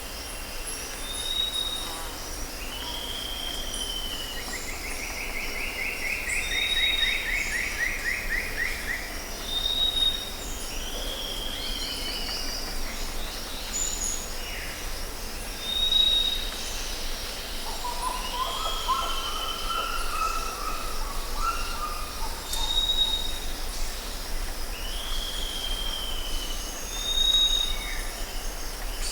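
Tropical jungle ambience: several birds calling over a steady high insect chorus. A short high whistle repeats every few seconds among falling slurred calls, with a fast trill early on and a lower warbling call about two-thirds of the way through.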